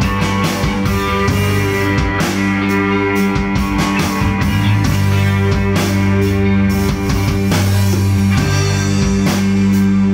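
Rock band playing electric guitars and a drum kit together, held low notes under a steady run of drum and cymbal hits.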